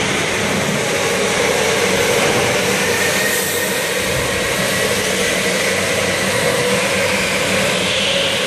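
Electric go-karts racing on an indoor track: a steady whine from the motors over a constant wash of tyre and machine noise that fills the hall, with a tone that wavers slightly as the karts speed up and slow down.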